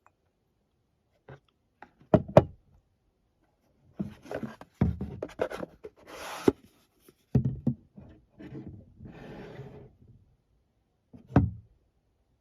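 A cologne bottle and its cap being handled: a few sharp knocks and clicks against a hard surface, with rubbing and shuffling noises in between and a brief hiss about six seconds in.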